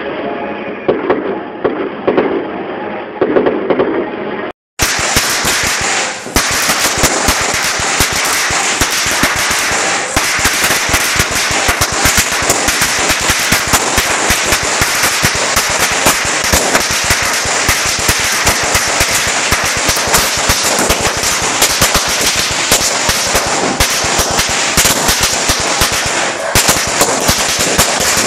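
Fireworks bursting in the first few seconds. Then, after a cut, firecrackers go off close by in a dense, continuous crackle of many bangs a second that carries on without letup.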